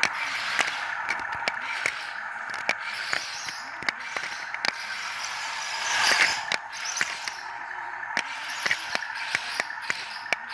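Remote-control toy tank with rubber tracks driving: its small electric motors and gearbox whine steadily under irregular rapid clicking from the gears and tracks, swelling louder about six seconds in.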